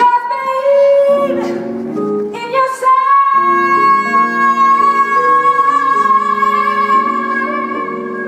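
Live band performance: a female vocalist sings a couple of short notes, then holds one long high note for several seconds over sustained keyboard chords.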